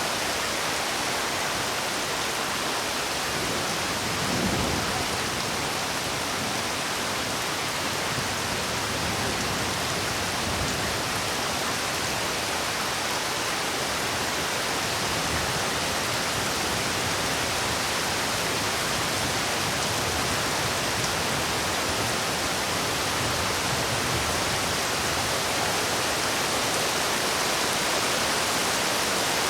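Heavy rain falling in a steady, even hiss, with a brief low swell about four and a half seconds in.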